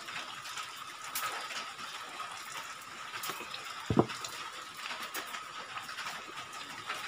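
Scissors snipping at a small cardboard box and the box being handled and opened, with light clicks and rustles and a single thump about four seconds in. A faint steady high hum runs underneath.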